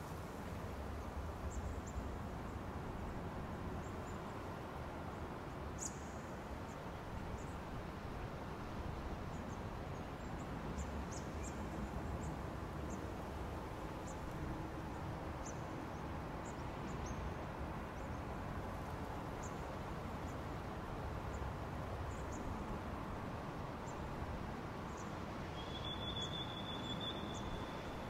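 Steady low rumble and hiss, with faint scattered high ticks and a short steady high tone about two seconds before the end.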